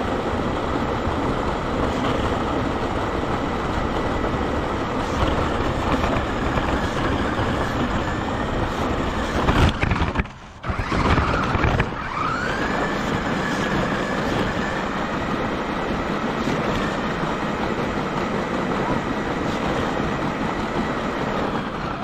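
Onboard sound of a radio-controlled monster truck driving over rough asphalt: a steady rumble of tyres and drivetrain with a high motor whine. Just before halfway the noise cuts out for a moment, then returns with the whine rising in pitch as the truck speeds up again.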